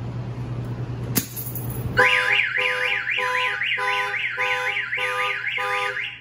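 Aftermarket car alarm siren sounding: a fast up-and-down warble, about three sweeps a second, over pulsing lower tones. It starts about two seconds in, after a sharp click, and cuts off suddenly near the end.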